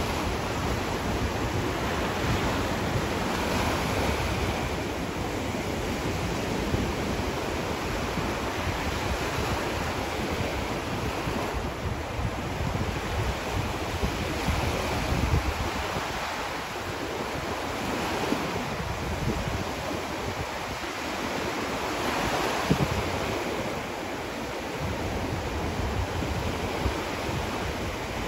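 Small Gulf of Mexico waves breaking and washing up on a sandy beach, a steady surf with gentle swells every few seconds, and wind buffeting the microphone.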